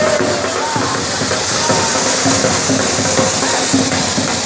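Loud bhangra music driven by a fast, steady dhol beat.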